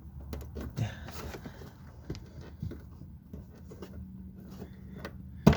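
Hands working plastic electrical connectors and retaining clips at the fuel pump: scattered small clicks and rustles, then one sharp snap near the end as a part clicks home.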